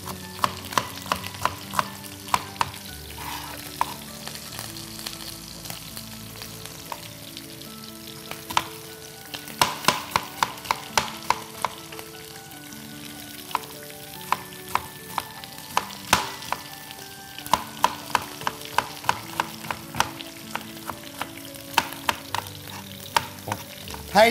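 Chef's knife slicing an onion into thin half-rings on a plastic cutting board: runs of quick taps of the blade on the board, about four or five a second, with short pauses between runs.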